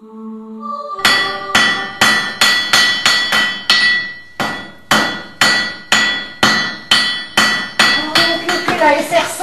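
Blacksmith's hand hammer striking hot work on an anvil, about two blows a second, each blow ringing out, with a short pause about four seconds in.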